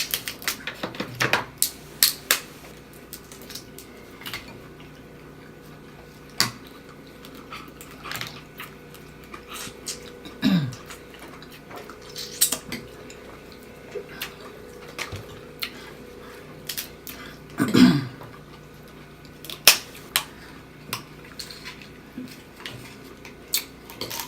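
Close-up eating of a seafood boil: irregular sharp clicks, taps and smacks as food is handled and chewed. Twice, about ten and eighteen seconds in, a short low vocal sound falls in pitch.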